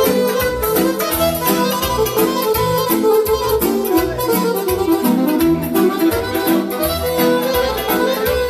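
Loud Romanian party-band music: a steady bass beat, a little under two beats a second, under a lively instrumental melody.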